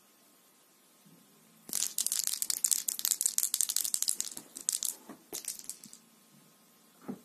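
A thread-wrapped cat toy ball shaken in the hand close by, its rattle crackling rapidly for about three seconds, then a couple of short shakes.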